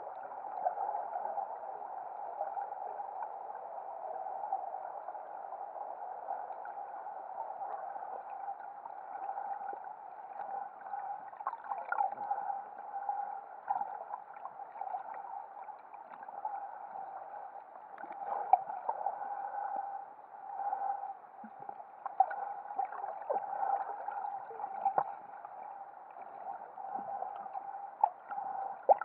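Muffled underwater sound picked up by a submerged camera: a steady hum with bubbling gurgles and scattered knocks, the loudest knocks around 12, 18 and 28 seconds in.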